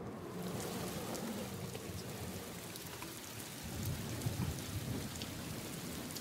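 Rain sound effect played over loudspeakers: a steady hiss of rain with scattered drop ticks, and a low rumble of thunder swelling about four seconds in.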